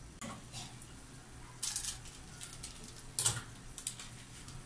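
Chicken gizzards simmering in their own released juices in a pan on a gas stove, with scattered soft pops and crackles and a few louder clicks.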